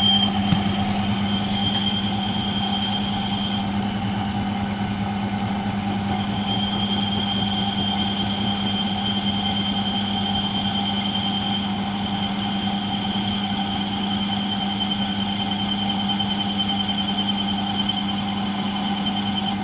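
Milling machine motor and spindle running with a steady hum while a drill bit cuts slowly into aluminium alloy under light feed pressure. A thin high whine comes and goes, then holds from about a third of the way in.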